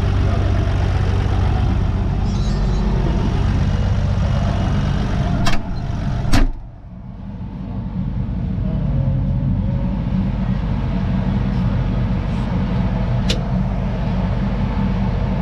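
Deutz-Fahr tractor engine running steadily, heard from the cab. About six seconds in come two sharp knocks, the second a cab door slamming shut, after which the engine sounds duller.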